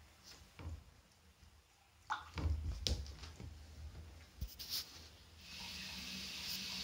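A cat pawing at a plastic bucket of water: scattered knocks and taps on the plastic, loudest in a cluster of thumps two to three seconds in. About five seconds in, a steady hiss starts and keeps going.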